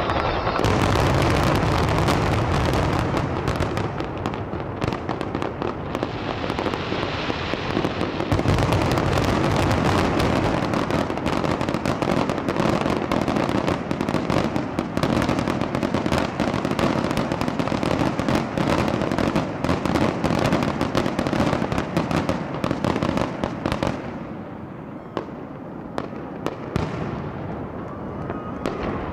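Pyrotechnic display of on-building and aerial fireworks: a dense, rapid run of crackling and popping bangs that thins out to scattered pops in the last five seconds or so.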